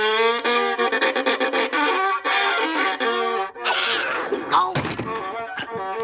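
Violin played by a beginner, wavering, scratchy notes held in a wobbling pitch, then a noisier sliding screech, with a sharp knock near the end.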